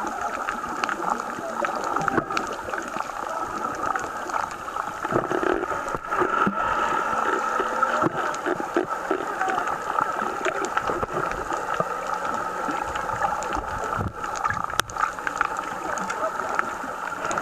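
Underwater recording: muffled, steady water hiss with scattered clicks and crackles, and a faint low steady hum from about a third of the way in.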